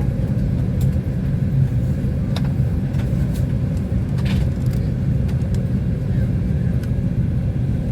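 Steady low rumble of airport apron machinery, with a faint steady hum and a few light knocks.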